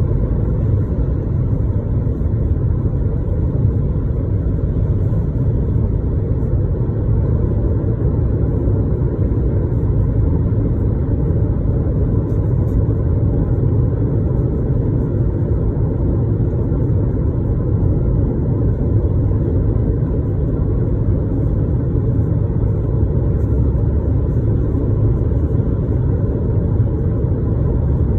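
Steady low road rumble of a car being driven, with no change in engine speed.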